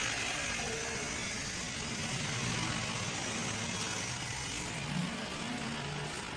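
Gas stove burner flame heating an empty wok, a steady rushing noise.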